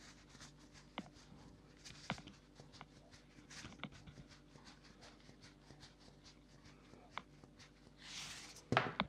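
Salt being shaken from a plastic salt shaker: faint, scattered light ticks with a few louder clicks. Near the end, a brief rustle and a sharp knock.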